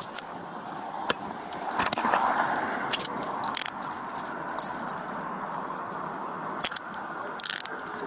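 Metal handcuffs being put on a person's wrists: several sharp clicks of the cuffs ratcheting shut, with metallic jangling.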